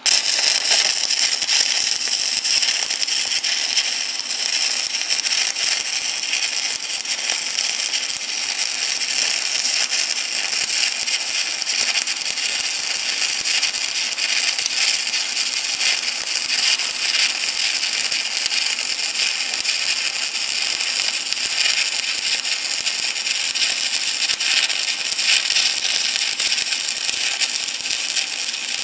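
Stick (arc) welding: the electric arc crackles and sizzles steadily as a bead is run. It strikes up abruptly at the start.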